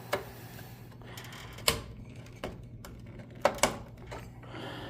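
Sharp clicks and knocks from hands handling parts inside a desktop PC case, about six in all, two close together about three and a half seconds in, over a steady low hum.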